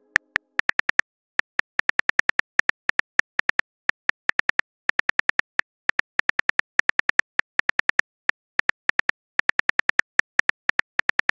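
Phone keyboard typing sound effect: rapid, sharp clicks in short runs of several taps with brief pauses between them, as a message is being typed out.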